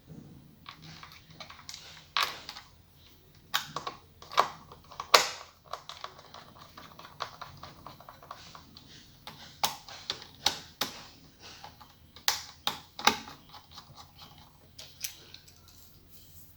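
Irregular clicks and taps of small hard parts and a tool being handled inside an opened iMac during reassembly, with a few louder knocks.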